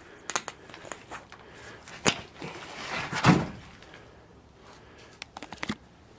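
Footsteps on a floor littered with debris: scattered crunches and knocks, with a louder scrape and thud about three seconds in.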